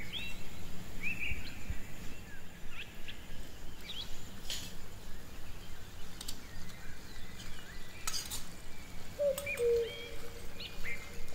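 Birds chirping in short, quick calls, with a few sharp clinks of a small metal slotted spoon against a miniature brass pot. Near the end a lower two-note call sounds twice.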